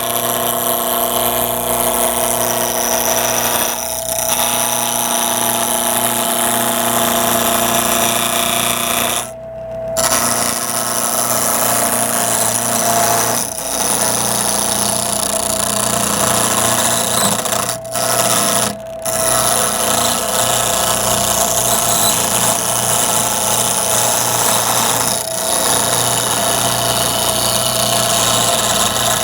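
Wood lathe spinning a wenge blank while a hand turning tool cuts it down toward a cylinder: a steady motor whir with scraping cutting noise. The cutting breaks off briefly about a third of the way through and twice around two-thirds through.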